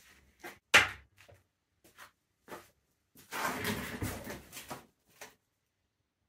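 A single sharp knock a little under a second in, a few light taps, then about a second and a half of shuffling and rustling as a man sits down heavily into a padded office chair, and one last small tap.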